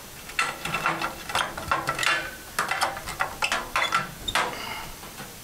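Four-foot fluorescent tubes being twisted out of their sockets and slid out of a metal ceiling fixture: an irregular run of clicks and scrapes, some with a brief glassy ring.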